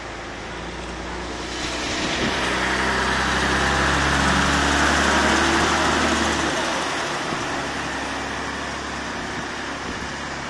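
Recovery truck driving through deep floodwater: its engine hum and the rush of water thrown up by its tyres swell as it approaches about two seconds in. The sound is loudest as it passes, then fades as it drives away through the flood.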